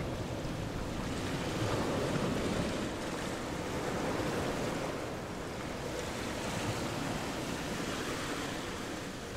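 A steady rushing noise with no distinct events, swelling slightly a couple of times.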